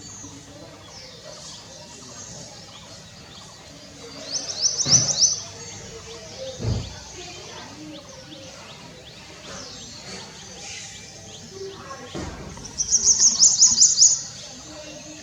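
A small bird singing: two loud, rapid trills of high, quickly repeated notes, one about four seconds in and one near the end, over fainter chirping from other birds. A low thump falls between the two trills.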